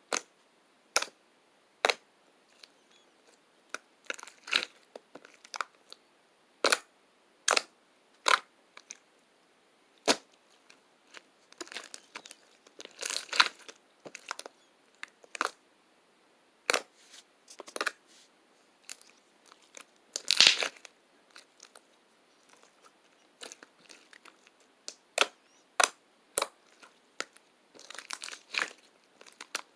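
Irregular sharp clicks and short bursts of crackling, a few at a time with pauses between, the densest crackle about twenty seconds in.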